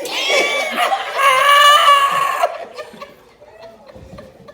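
A person's high-pitched squeal of laughter, drawn out for about two seconds and then dying away.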